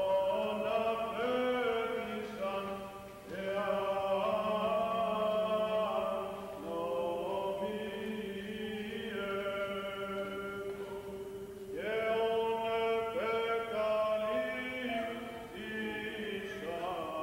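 Orthodox baptismal chant: voices sing a melodic line in phrases over a steady held drone note, with short breaks between phrases.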